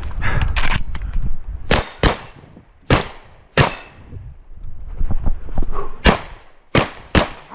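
Shotgun shots during an IPSC stage run: four shots in under two seconds, a gap of about two and a half seconds with faint clicks, then three more in quick succession, each shot ringing briefly.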